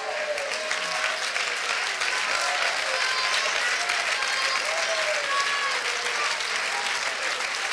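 Church congregation clapping and cheering throughout, with scattered voices calling out over the applause.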